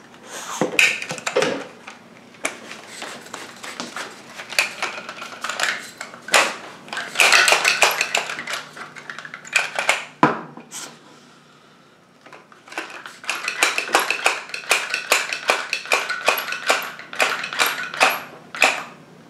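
Hand-operated jerky gun being worked: a rapid run of sharp clicks as the trigger is squeezed again and again to drive the plunger rod forward, pushing a bread plug through the tube to force out the last of the ground meat. The clicking stops briefly a little past halfway, then goes on at about three or four clicks a second.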